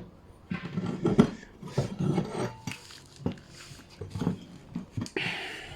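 Small metal hardware being handled: a run of light clinks, knocks and rubbing scrapes, with a short rustle about five seconds in.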